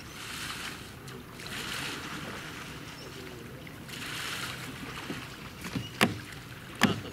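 Paddles of a two-person racing kayak dipping into calm water, with a splash on each stroke every couple of seconds. Near the end come two sharp knocks, less than a second apart.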